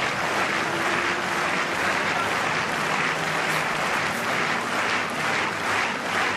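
Large stadium crowd applauding in a steady wash of clapping, which starts falling into a rhythmic clap of about two to three beats a second near the end.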